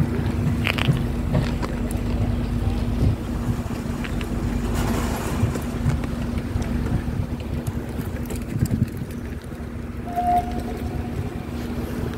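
A steady engine hum over a low rumble, with wind on the microphone and a few small clicks.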